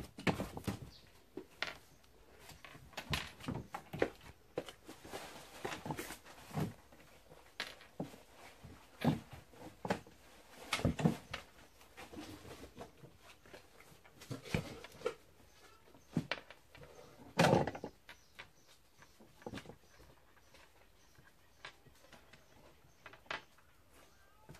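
A kitten playing around a plastic crate on a wooden floor: irregular light taps, knocks and scrapes, with one louder knock about three quarters of the way through.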